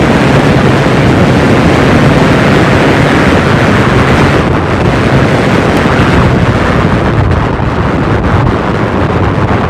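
Heavy wind buffeting on the microphone from riding a Super73 Z1 electric bike at close to 40 mph, with road rumble underneath. It eases a little near the end as the bike slows.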